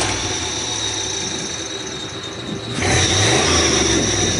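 1964 Chevrolet C10 pickup doing a burnout: the engine revving hard while the rear tire squeals with a steady high-pitched squeal. The revs and squeal sag for a couple of seconds, then the engine pitch climbs and the squeal returns loudly about three seconds in.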